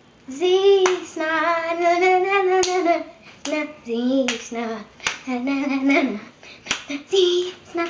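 A young girl singing in long, drawn-out, wavering notes, clapping her hands roughly once a second.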